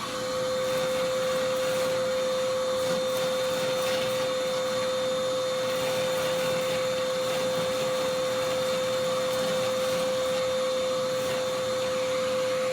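Oreck XL handheld vacuum cleaner running steadily at full speed, its motor giving one even whine over a rush of air.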